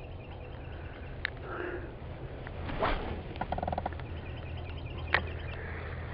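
A fishing rod cast and reel: a brief swish about three seconds in, followed by a quick run of rapid ticks as the line runs, with sharp clicks about a second in and just after five seconds, over a steady low hum.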